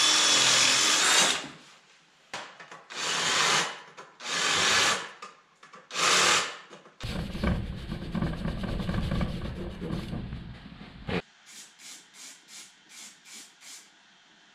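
A cordless drill drilling a steel bracket: one long run, then three short bursts. Next comes about four seconds of abrasive paper rubbing on the steel by hand, then a run of short hisses from an aerosol can of primer.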